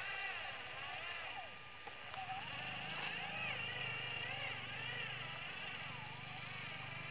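Small electric motor and gears of a 4x4 RC model truck whining, the pitch rising and falling again and again as the throttle is worked. A lower drone joins in about two and a half seconds in.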